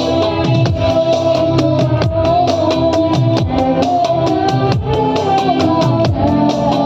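Music: a Christian worship song with a steady drum-kit beat under a moving melody line.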